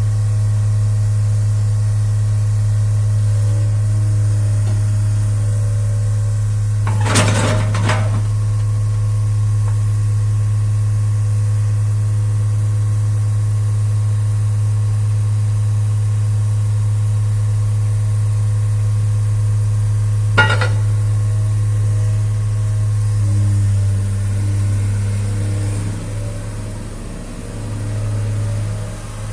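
Diesel engine of a 2007 Atlas-Terex TW160 wheeled excavator idling steadily, with two short knocks, one about seven seconds in and one about twenty seconds in. Near the end the engine note dips and wavers.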